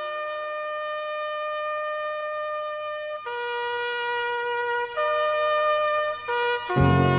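A slow, trumpet-like melody of long held notes, each held for one to three seconds. Near the end a louder, fuller sound with deep low notes comes in underneath.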